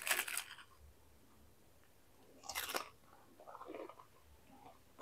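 Close-up crunching bites into crispy fried tempeh: one crunch right at the start, a sharper one about two and a half seconds in, then softer chewing crunches.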